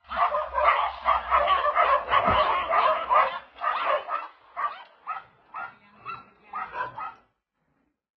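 Dogs barking rapidly and excitedly: a dense, overlapping volley of barks for about four seconds, then single barks about two a second that stop about a second before the end.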